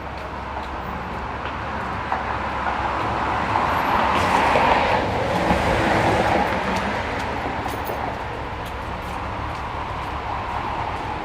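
Street traffic noise, with a passing vehicle swelling to its loudest about four to six seconds in and then fading over a steady low hum.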